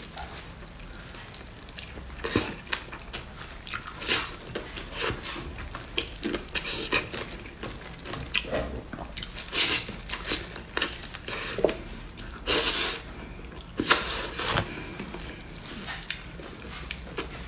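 Close-miked eating of sauce-glazed pig's trotters: chewing, sucking and tearing at the skin and meat with plastic-gloved hands, making a steady run of short smacking clicks. A few longer, louder bursts come about two-thirds of the way through.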